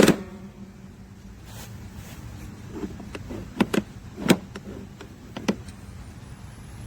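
A sharp knock with a brief ringing hum after it, then several lighter clicks and knocks spread through the middle.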